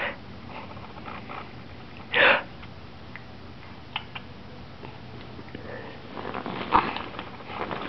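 A single short sniff about two seconds in, over a quiet room background, followed by a few small clicks and faint rustles.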